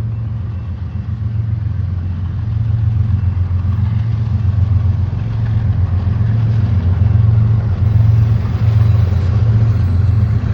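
Train passing close by: a loud, steady low engine rumble that slowly grows louder.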